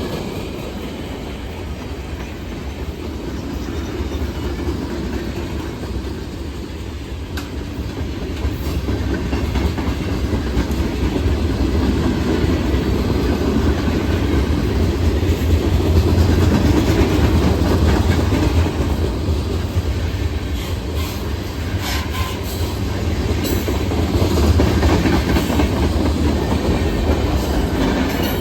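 Norfolk Southern freight train rolling past: a steady rumble of railcars with wheels clicking over the rail joints, growing louder toward the middle.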